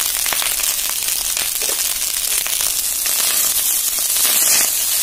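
Rice frying in hot oil and ghee in a karahi with whole spices, a dense sizzle full of fine crackles as it is stirred, growing louder about four seconds in. This is the rice being toasted in the fat before the water goes in, for a pulao.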